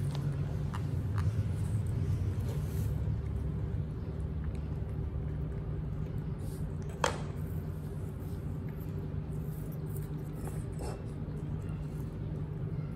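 A steady low hum, with faint scattered clicks and taps from hands and small fingers handling mashed apple on ceramic plates. One sharper click comes about seven seconds in.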